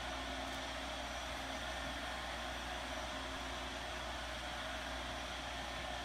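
Steady background hiss with a low hum underneath, unchanging throughout.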